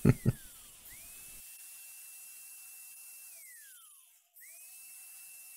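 Two short knocks, then a DeWalt angle grinder with a cutoff wheel spinning up to a steady high whine and winding down, twice.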